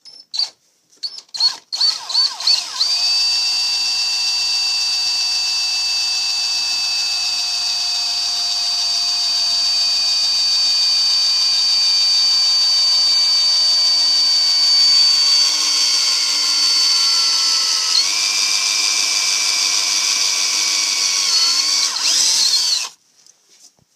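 Handheld power drill boring holes through a composite rudder post. A few short trigger bursts are followed by one long continuous run with a steady high whine that sinks slightly in pitch, and it stops shortly before the end.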